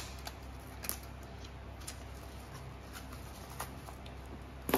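Scissors snipping and a padded paper mailer crinkling as the package is cut open: scattered sharp clicks, the loudest near the end, over a steady low hum.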